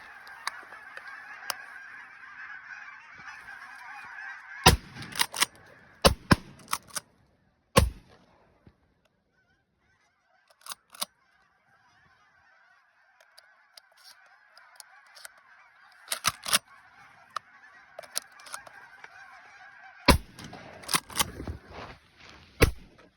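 A large flock of geese honking, with bursts of shotgun fire: a quick volley of about five shots around five to eight seconds in, then more shots around sixteen seconds and again near the end. The honking breaks off for a few seconds after the first volley, then the flock is heard again.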